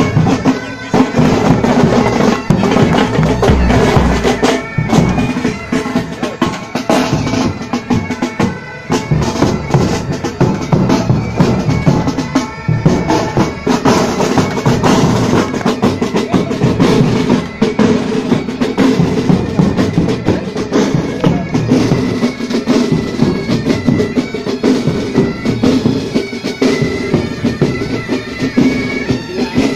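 Military pipe band playing: bagpipes sounding their steady drone and melody over a dense, continuous beat of marching drums.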